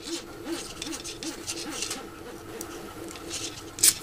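A nylon zip tie being fastened around a small endstop switch: scratchy clicks as its tail is worked through the head, then one sharp, much louder click near the end.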